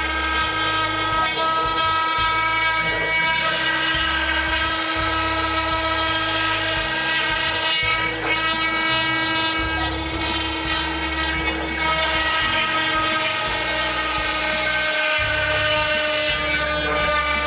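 CNC router spindle, driven by a VFD, running with a steady whine while the bit carves pine. Underneath it a lower hum of the axis drive motors changes in steps as the gantry moves back and forth.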